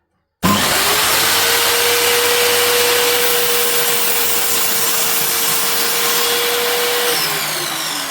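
Parkside sliding mitre saw's motor switched on about half a second in, running loud at a steady high speed with a steady whine; near the end its pitch sinks as the motor winds down.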